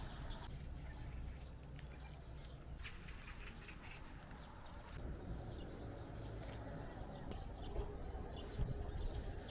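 Faint outdoor background with a low rumble and scattered short bird chirps.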